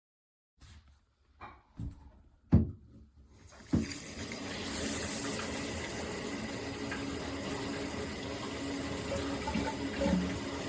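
A few separate knocks and clicks, the loudest about two and a half seconds in. From about four seconds in comes the steady rush of water spraying from a Moen Magnetix handheld shower head.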